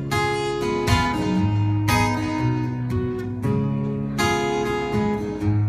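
Acoustic guitar strummed in a steady rhythm with a moving bass line, the instrumental intro of a country-style song.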